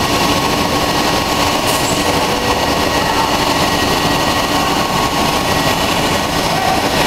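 Steady running noise of industrial machinery, a dense rumble with a constant hum and a held whine on top, unchanging throughout.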